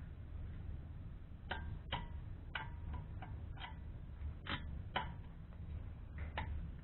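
A run of about eight irregular metallic clinks and taps, some ringing briefly, as metal tools and parts are handled during a brake job, over a low steady hum.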